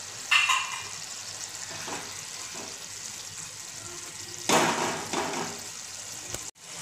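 A spatula stirring cooked bottle gourd curry in a nonstick pan. Stirring strokes come about a third of a second in and again, louder, around four and a half to five seconds in, over the faint steady sizzle of the pan. The sound cuts out briefly near the end.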